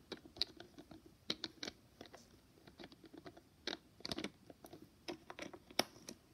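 Small plastic toys being handled: scattered, irregular light clicks and taps, faint.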